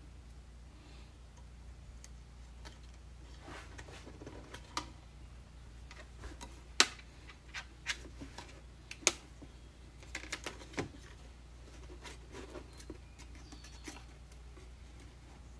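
Scattered small clicks and taps of a plastic zip tie being fed through drilled holes in a plastic laundry jug. The two sharpest clicks come about 7 and 9 seconds in.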